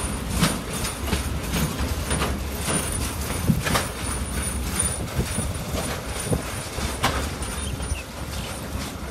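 Open-sided passenger cars of a train rolling past close by: irregular wheel clicks and knocks on the rails over a low rumble, a little quieter near the end as the cars move away.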